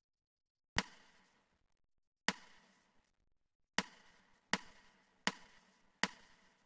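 Count-in clicks setting the tempo for a backing track: six sharp, short clicks, two slow ones and then four at twice the speed.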